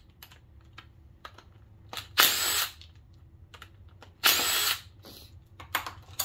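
Handheld power drill-driver running in two short bursts of about half a second each, some two seconds apart, as bolts are spun out. Light clicks of tools and parts come between the bursts.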